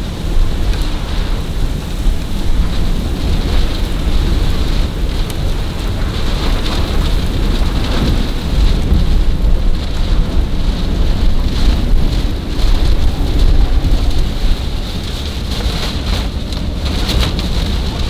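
Heavy rain pelting a car's roof and windshield, heard from inside the car as a dense patter of ticks over a steady deep rumble.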